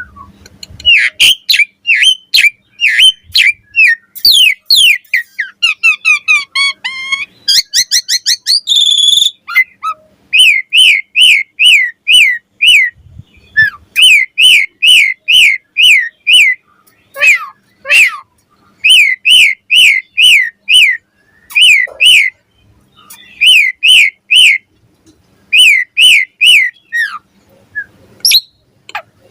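Javan pied starling (jalak suren) singing: loud, clear whistled notes repeated about twice a second in runs with short pauses, and a stretch of faster, varied twittering a few seconds in.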